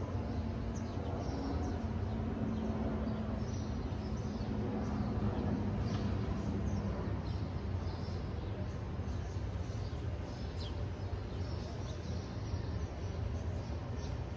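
Birds chirping in short scattered calls over a steady low rumble of outdoor background noise.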